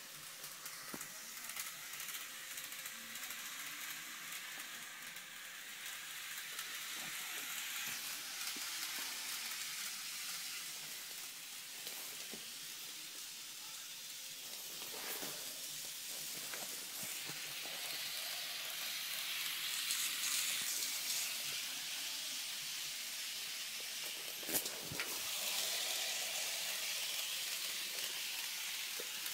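KATO N gauge model train running on its track: a steady, fine rattling hiss of wheels and motor that swells and fades as the train passes, with a few sharp clicks, the loudest about 25 seconds in.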